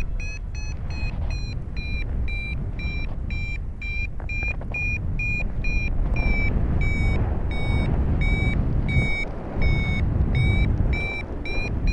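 Paragliding variometer beeping about twice a second, its pitch drifting slightly up and down: the tone a vario gives while the glider is climbing. Heavy wind noise on the microphone rumbles underneath.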